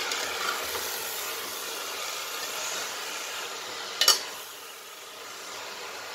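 Mutton with freshly added grated beetroot, turnip and turnip greens sizzling in a hot pot as it is stirred with a metal spoon. About four seconds in the spoon gives one sharp clink against the pot, and the sizzle is quieter after it.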